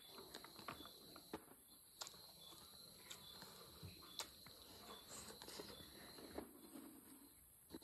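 Faint eating sounds from someone chewing and handling food with their fingers: scattered small clicks and smacks, over a steady high chirring of crickets.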